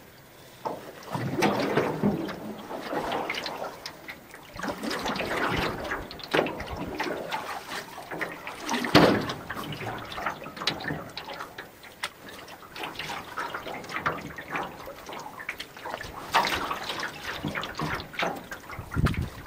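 Canoe being paddled across a lake: a paddle dipping and pulling through the water with splashing and trickling drips, in swells every few seconds.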